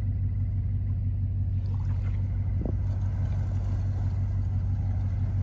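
Boat's outboard motor running steadily at low throttle, driving the boat up onto its trailer, with a single light knock about halfway through.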